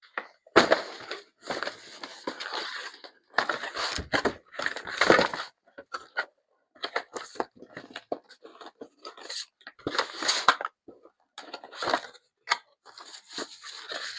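Cardboard and plastic packaging being handled and rummaged through: an irregular run of crinkling, tearing and scraping bursts with short pauses between them.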